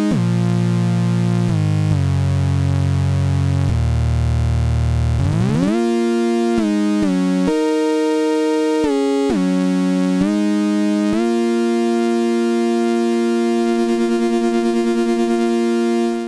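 Ensoniq EPS16+ sampler playing waveform B28, a fizzy saw-like tone of a root and a fifth sounding together, in a monophonic line of held notes that glide from one pitch to the next. The low notes sweep up to higher ones about five seconds in. Near the end, aftertouch adds a wavering tremolo and vibrato before the note cuts off.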